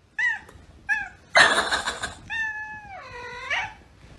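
Domestic cat giving two short bark-like calls about a second apart, then a longer meow whose pitch drops near the end. A short, loud breathy burst comes between them.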